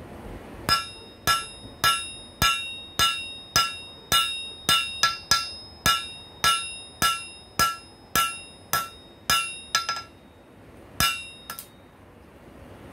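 Hand hammer forging red-hot rail-spike steel on an anvil: steady blows a little under two a second, each with a brief ring. The blows pause about ten seconds in, then two last strikes follow.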